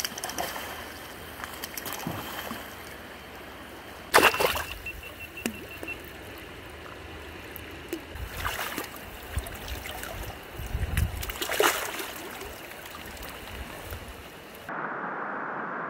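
River water rushing over a shallow rocky run, with three sharp splashes in the shallows, the loudest about four seconds in. Near the end the sound cuts abruptly to a duller, muffled hiss.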